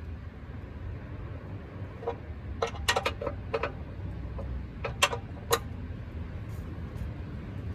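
A quick, irregular run of about ten sharp clicks and knocks over some three seconds, starting about two seconds in, over a steady low rumble.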